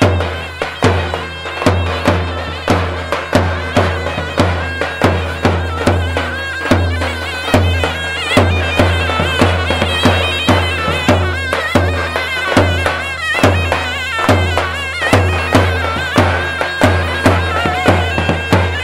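Davul bass drum and zurna shawm playing a halay dance tune: a wavering reed melody over a steady beat of deep drum strokes.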